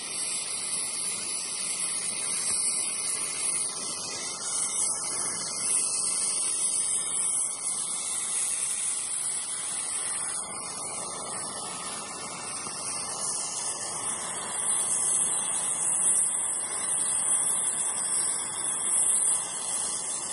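Gas welding torch flame hissing steadily as it welds brass with a filler rod.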